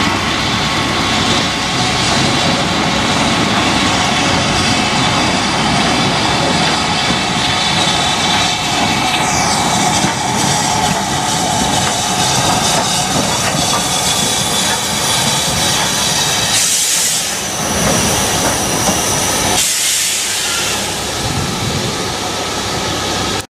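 Steam locomotive working with its train, a steady loud hiss of steam over the rumble of the train, with two sharper bursts of hiss near the end.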